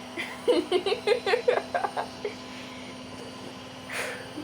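A young child babbling in short, high-pitched syllables over a steady low hum, followed by a brief breathy noise near the end.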